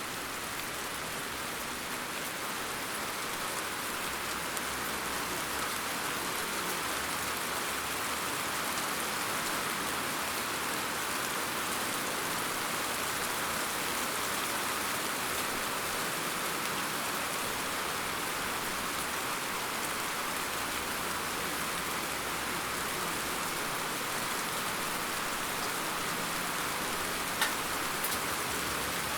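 Steady rain falling, an even hiss of drops on a surface, with one brief sharp drop tap near the end.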